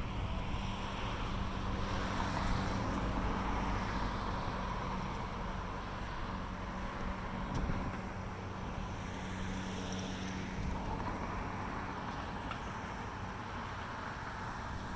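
Road traffic going by: a steady rushing noise that swells and fades a couple of times, over a low steady hum.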